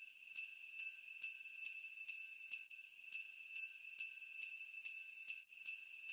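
Jingle bells shaken in a steady rhythm, a little over two shakes a second, with a high ringing that carries on between shakes.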